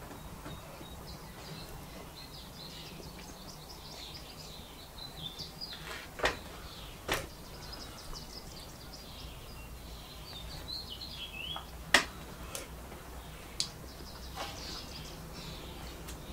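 Small birds chirping and twittering in the background, with a few sharp clicks scattered through, the loudest about twelve seconds in.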